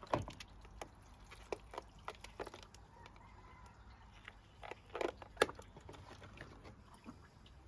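Hands handling and tying off a filled water balloon: faint rubbery squeaks, crackles and clicks, with a couple of louder clicks about five seconds in.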